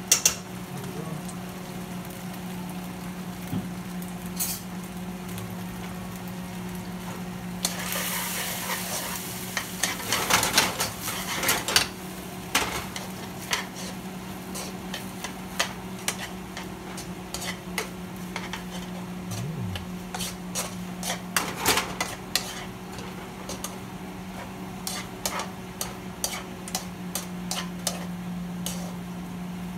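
Beef, bell peppers and onion sizzling in a nonstick wok while tongs stir and toss them, clicking and scraping against the pan. The frying gets louder about eight to twelve seconds in, over a steady low hum.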